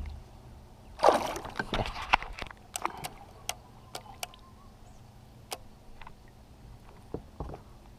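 A released bass splashing at the surface as it kicks away from the side of a kayak: one loud splash about a second in, then smaller splashes. A few sharp clicks follow.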